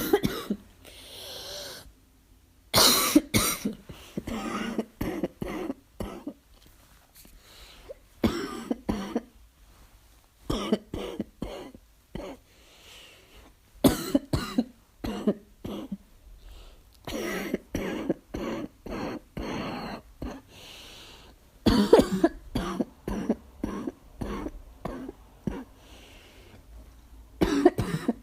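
A person coughing in repeated fits: clusters of short barking coughs, several in quick succession per fit, with pauses between fits. The uploader labels it an asthma cough.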